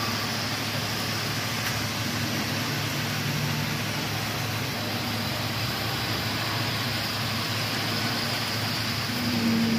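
HO scale model trains running on a layout: a steady whirring of small locomotive motors and wheels on the track, with a low hum that shifts slightly in pitch.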